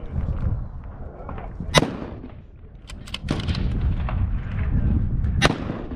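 Two rifle shots from a muzzle-braked 6mm BR precision rifle, about three and a half seconds apart, each a sharp crack. A low rumble of wind on the microphone runs underneath.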